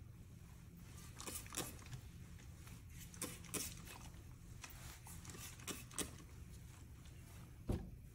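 Faint soft scrapes and rustles coming in pairs about every two seconds over a low steady hum: a detangling brush drawn through wet hair, with the phone rubbing against clothing.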